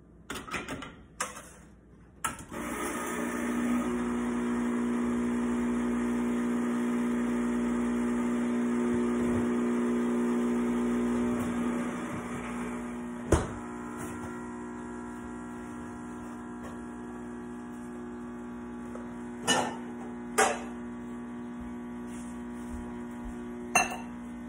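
Rocket Appartamento espresso machine's vibration pump humming steadily as it pulls an espresso shot. The pump starts about two seconds in and drops to a lower level about halfway through. A few sharp knocks sound over it in the second half.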